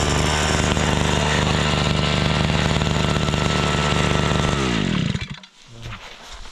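Gas-powered ice auger drilling through lake ice, its small engine running flat out at a steady pitch. About four and a half seconds in the throttle is released and the engine winds down with a falling pitch.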